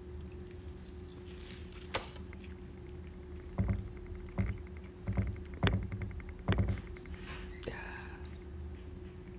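Dull knocks and thumps, about six of them, from a gloved hand bumping the recording phone or the table, over a steady low hum.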